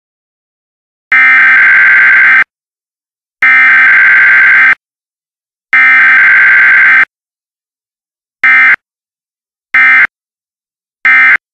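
Emergency Alert System SAME digital data bursts: three long, harsh, buzzing tone bursts, each a little over a second, then three short bursts near the end, the header code and the end-of-message code of an alert.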